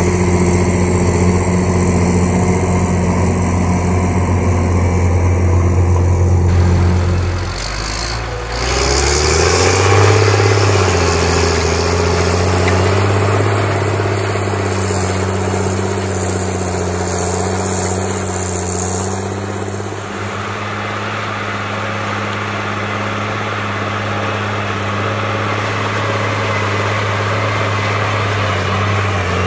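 John Deere diesel engine of a Rába articulated tractor running steadily. About eight seconds in, the note drops, then rises and settles into a steady running note again.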